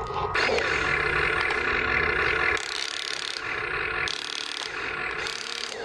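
Electric gear motors of a Huina RC excavator whining and grinding in stop-start runs as the boom, arm and bucket move.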